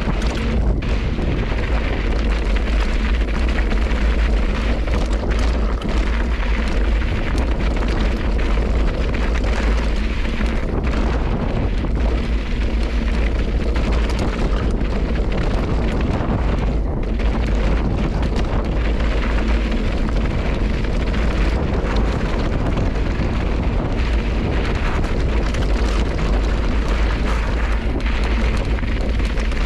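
Wind buffeting an action camera's microphone as a bike rides a rocky desert trail, a loud, steady, deep rushing roar, with small rattles and clicks from the tyres and bike on loose gravel.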